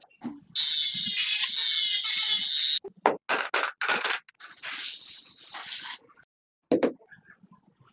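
Hissing spray in bursts: a long burst of about two seconds, several short bursts, then another of about a second and a half.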